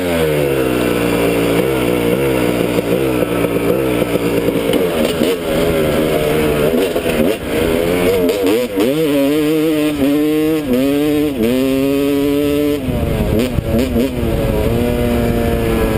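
Kawasaki dirt bike engine being ridden hard. The revs drop at the start, then climb and fall again several times in quick succession about halfway through as the rider shifts up, before settling into a steadier run with heavy low rumble.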